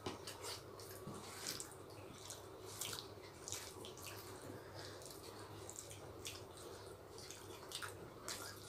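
Eating by hand: rice and chicken curry being chewed and mixed with the fingers, giving soft, irregular wet clicks and smacks.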